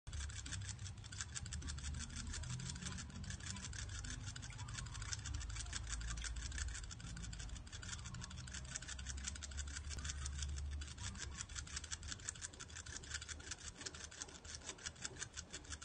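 Dumbo rat licking water: a rapid, even run of small ticks, one for each lick.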